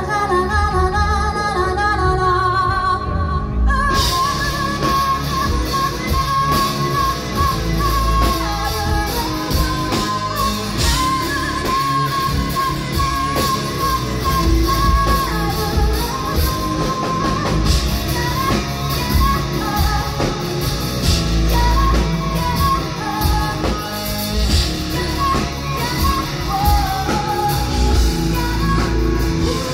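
Live metal band with a female lead singer. Her voice carries a held melody over bass, guitar and drums. The full band with crashing cymbals comes in about four seconds in after a softer opening.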